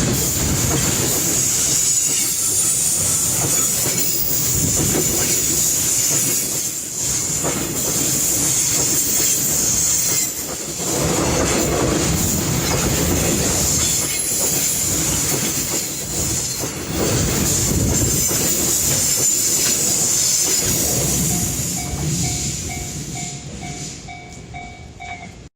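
A long freight train of container wagons rolling past close by: steel wheels clattering over the rail joints with a steady high-pitched wheel squeal and hiss. It dies away over the last few seconds as the end of the train goes by.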